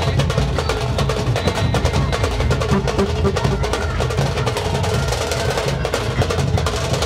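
Procession band music: fast, dense drumming with a melody running underneath.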